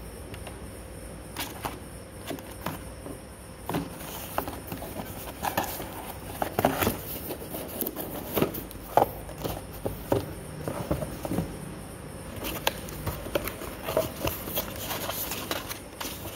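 Hands handling a cardboard gift box and its contents: irregular taps, knocks and rustles of cardboard and packed items being moved, busiest in the middle and again near the end.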